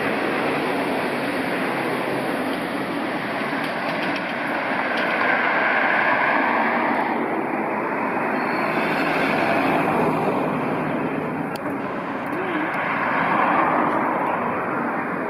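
Steady urban road traffic, swelling as vehicles pass about six seconds in and again near the end.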